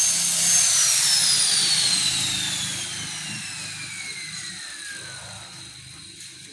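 Angle grinder's high whine, steady for a moment, then falling steadily in pitch and fading as the grinder winds down after being switched off.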